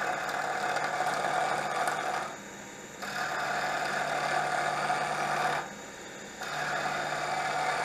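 Wood lathe spinning wooden slimline pen blanks on a mandrel at about 2300 RPM while a turning tool, riding the bevel, cuts them round. The cuts come as three hissing passes of about two and a half seconds each, the tool lifting off briefly about two seconds in and again near six seconds, with the lathe's steady hum underneath.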